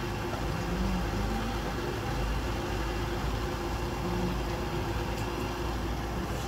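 Steady kitchen background noise: an even rushing hiss with a faint constant hum.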